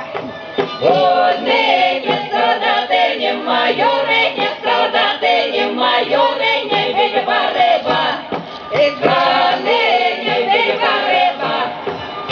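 A folk ensemble singing a Russian folk song in chorus, women's voices leading, amplified through stage microphones, with a tambourine, a small pipe and a fiddle accompanying.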